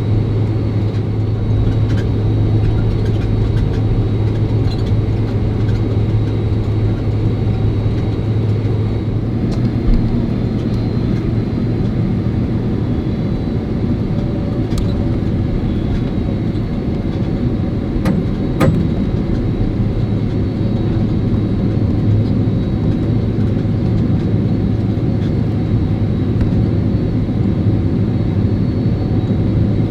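Steady, unchanging drone of an airliner cabin inside a Boeing 767-300, a deep hum under an even rush, with a faint high steady tone and a couple of small clicks a little past the middle.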